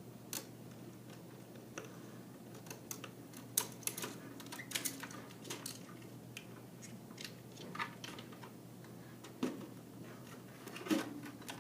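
Irregular clicks and taps of plastic and metal desktop computer parts being handled and unclipped inside the PC case, at uneven intervals with a few louder knocks.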